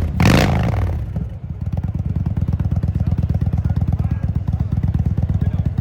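Indian Scout's V-twin engine given a quick throttle blip that rises and falls in pitch, then settling into a steady idle with an even, rapid exhaust pulse.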